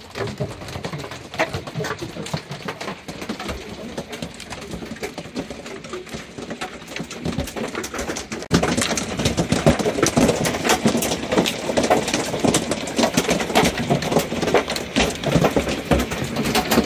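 Hailstones hitting the roof and skylight of a truck camper, a dense, irregular clatter of many impacts heard from inside. It gets clearly louder about halfway through.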